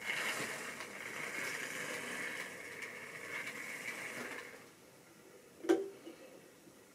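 Model railway locomotive running on the track: a steady electric-motor whir with wheel noise that starts abruptly and dies away after about four and a half seconds, then a single sharp click about a second later.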